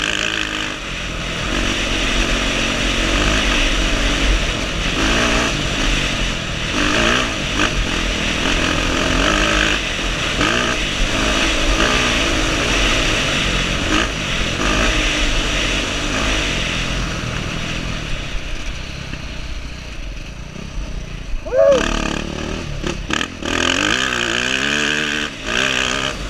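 Dirt bike engine revving up and down with the throttle while riding a rough trail, with wind buffeting the helmet-mounted microphone. The engine eases off around twenty seconds in, then there is a short loud burst and it picks up again.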